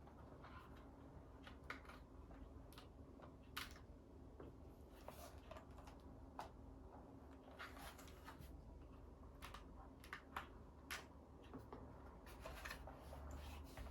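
Faint, irregular clicks of keys being pressed on a custom mechanical keyboard with silent switches, over a low steady hum.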